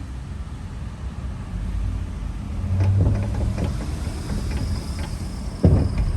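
Dodge Charger's front suspension clunking and knocking over a steady low road rumble while driving on a smooth road, several knocks through the middle and the loudest one about five and a half seconds in. The clunks come from a sway bar whose rubber bushing has slipped out of its socket, letting the bar swing loosely.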